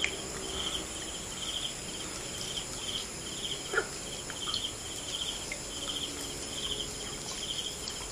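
Insect chirping in short buzzy pulses about twice a second over a steady high-pitched drone of other insects. A single short knock about four seconds in.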